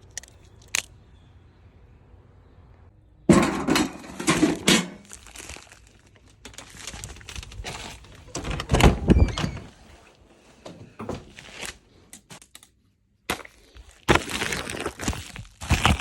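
Packaging being handled and opened by hand: bursts of rustling and crinkling with knocks, starting about three seconds in, thinning out past the middle and picking up again near the end.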